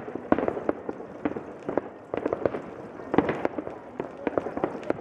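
Fireworks and firecrackers going off all over a town below: a dense, irregular run of bangs and pops, several a second, overlapping with no pause.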